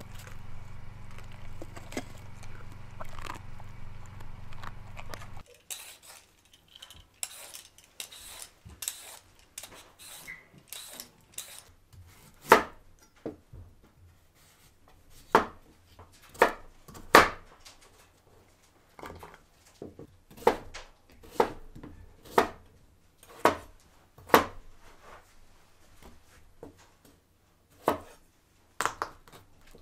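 A kitchen knife peeling and chopping root vegetables on a wooden cutting board: light scraping strokes, then irregular sharp knocks of the blade on the board. Over the first five seconds or so, a dog eats from a steel bowl over a steady low hum.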